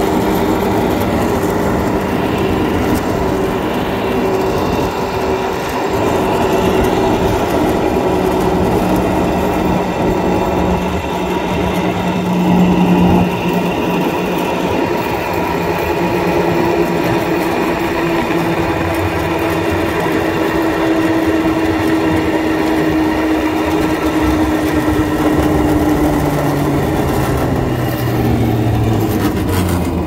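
Open cable car running along its steel cable: a steady mechanical hum whose tones slowly fall in pitch through the second half.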